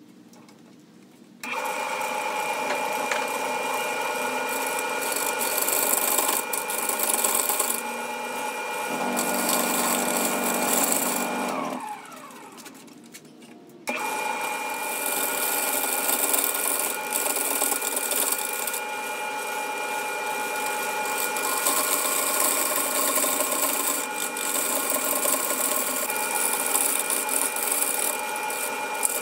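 Grizzly wood lathe motor running with a steady whine as it spins a faceplate-mounted aromatic cedar blank, while a gouge cutting the wood adds a hiss that comes and goes. About a second and a half in, the lathe starts suddenly. About halfway through, it winds down with a falling pitch and is quiet for about two seconds before running again.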